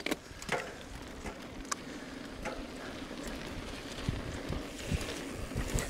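Trek Session 9.9 downhill mountain bike rolling off down a trail: tyres crunching over dirt and gravel as the bike rattles, with scattered clicks and knocks. The noise grows slowly louder as it picks up speed.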